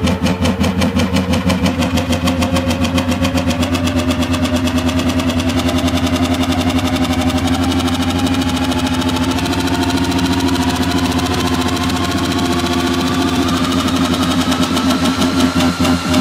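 Electronic dance music build-up: a pulsing roll that keeps speeding up over a held low bass, with a tone sweeping steadily upward, leading into the drop.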